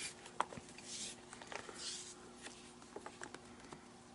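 Glove lace being threaded and drawn through the lacing holes of a baseball glove's heel. A few faint, soft swishes of the lace sliding against the leather, about a second apart, with light clicks and taps from the handling.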